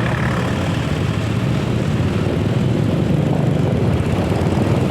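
Motorcycle engine running with steady road noise while riding in traffic, the level rising slightly toward the end.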